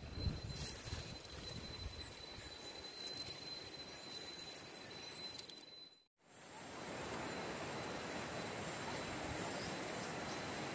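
Quiet outdoor ambience with faint irregular rustling and a thin steady high tone, then, after a brief dropout about six seconds in, a steady rushing of river water.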